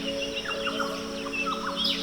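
Many short, quick bird chirps overlapping one another, over soft background music of steady held tones.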